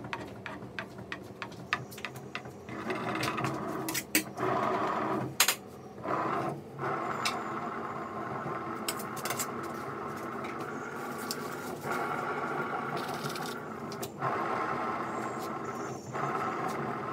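Metal palette knife scraping and rubbing over cream icing on a cake as the cake turntable is turned, with a run of sharp clicks in the first few seconds. From about three seconds in a steady scraping rub sets in and stops briefly several times.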